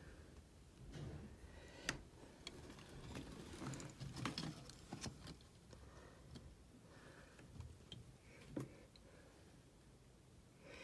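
Faint, scattered small clicks and taps with light rustling: handling noise from a hand moving over a clear plastic sheet laid on a wooden floor.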